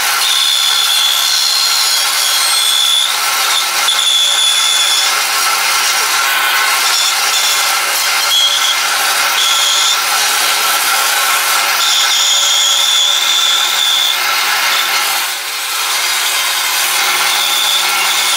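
An 18-inch bandsaw running and ripping lengthwise through a thick wooden board, the blade cutting steadily all the way through, with a high whine that comes and goes over the cutting noise.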